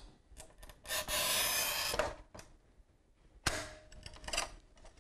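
A manual tile cutter's scoring wheel is pushed once across a glazed tile: a rasping scrape lasting about a second. About two and a half seconds later comes a sharp crack with a brief ring as the tile snaps along the score line, then a few lighter knocks from the cutter and the tile pieces.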